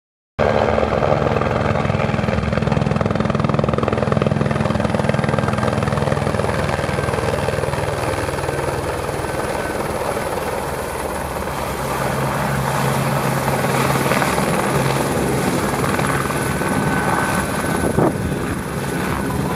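Eurocopter Écureuil helicopter flying in low and settling onto the field: a steady beat of main rotor blades over a continuous turbine rush, with a thin turbine whine showing up in the last few seconds.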